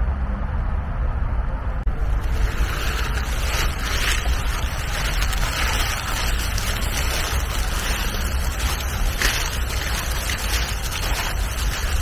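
Wind buffeting the microphone: a steady low rumble under a hiss. About two seconds in it drops out for a moment and comes back with more hiss.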